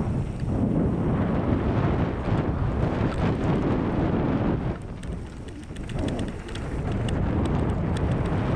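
Wind buffeting the camera microphone over mountain bike tyres rolling fast on a packed-dirt trail, with small rattles and clicks from the bike. The noise eases for a second or so just past the middle, then builds again.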